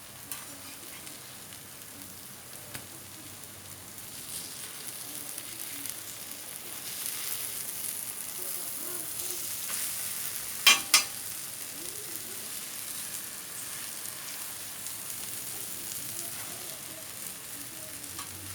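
Food frying in hot oil in a pan: a steady sizzle that grows a little louder about four seconds in. Two sharp knocks close together just under halfway through.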